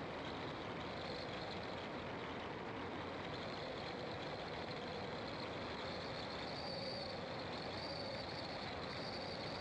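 Car driving along a road: steady engine and tyre noise, with a high steady tone running above it that gets a little stronger in the second half.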